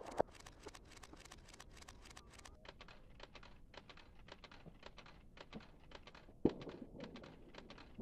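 A quiet lull filled with faint scattered clicks, with two slightly louder ticks, one just after the start and one about six and a half seconds in.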